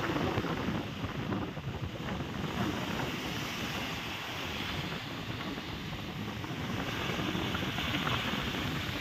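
Wind buffeting the microphone at the seashore: a steady rumbling hiss with no distinct events.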